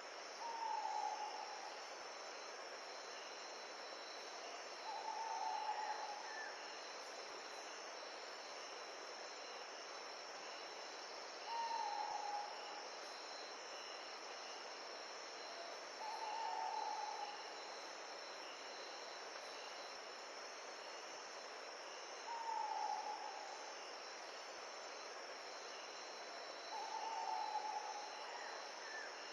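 Natural ambience: a steady hiss of wind and insects with a continuous high insect drone, over which a bird gives a single short call, about a second long and dropping slightly in pitch, repeated six times about every five seconds.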